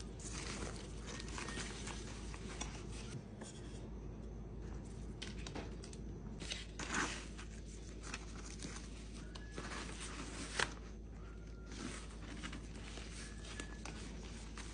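Fabric rustling and crinkling as hands handle a CALPAK Palm water bottle holder bag with a bottle inside, with a few sharp clicks, the loudest about seven and ten and a half seconds in.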